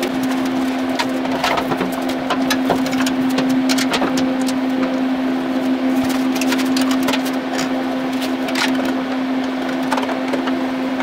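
Small clicks and taps of a screwdriver and bolts against aluminum sheet as a brace is fastened to a firewall, irregular and scattered, over a steady low hum.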